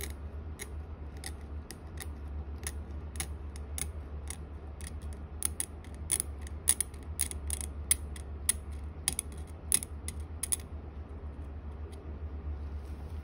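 A Barnhart 5/6 universal curet's steel tip clicking and scraping against a typodont's plastic teeth in small working strokes: a run of sharp, irregular ticks, thickest in the middle, over a steady low hum.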